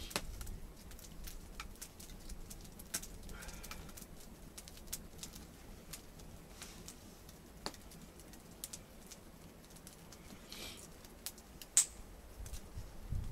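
Wood campfire crackling, with irregular sharp pops of burning wood and one louder pop near the end. The fire is drawing well in a draught and has flared up.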